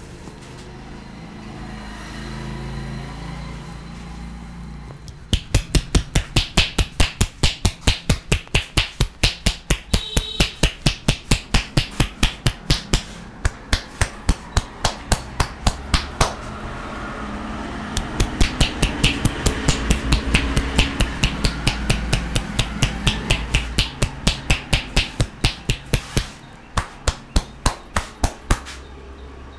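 Percussive massage from a barber's hands: rapid, even slaps on the customer, about four a second, starting a few seconds in and running in two long stretches with a short break between them.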